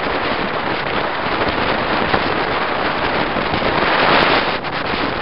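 Wind buffeting the microphone over the road and engine noise of a moving vehicle: a loud, steady rush with no siren or horn tones in it.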